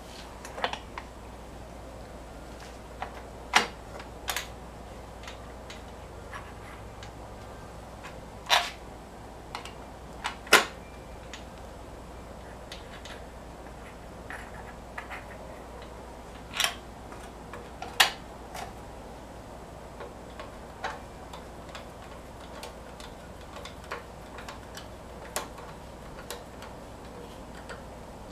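Irregular sharp clicks and knocks of an air cleaner housing being handled and fitted at the carburettor of a stopped 5 hp Briggs & Stratton engine, a few of them louder, with no engine running.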